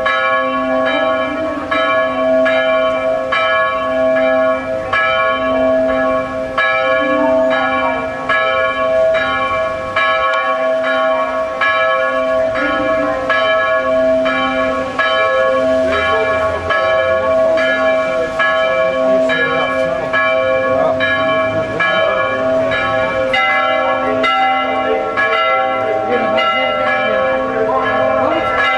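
Church bells ringing in the bell tower: a quick, even run of strikes, about two a second, over the bells' sustained ringing, with a lower-pitched bell sounding in between.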